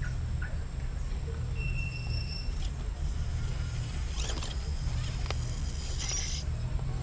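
Scale RC rock crawler's small electric motor and gears whining in short spurts as it crawls and drops over rocks, two spurts in the second half, over a steady low rumble.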